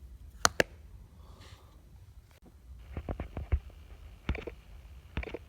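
Sharp clicks and taps of a tablet's keyboard case being handled and set up as a magnetic stand: a quick pair of clicks about half a second in, a cluster of clicks around three seconds, and single clicks near four and five seconds.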